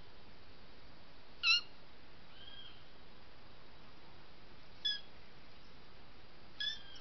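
Three short, high chirping calls from an animal: one about a second and a half in, one near five seconds and one near the end. A fainter, drawn-out arching note comes between the first two, all over a steady background hiss.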